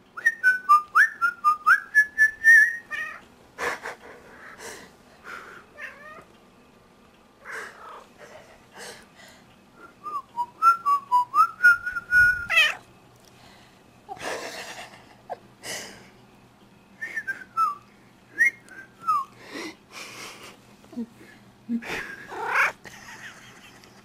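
A person whistling short runs of quick notes, with a dilute tortoiseshell cat meowing along in the gaps like a duet.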